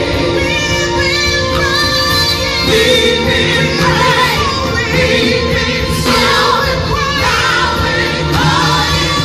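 Live gospel choir singing with a band, voices over keyboards and a steady low accompaniment.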